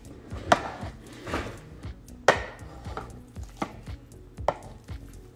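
Avocados being mashed for guacamole with a potato masher in a wooden salad bowl: irregular knocks of the masher striking the bowl, about one a second.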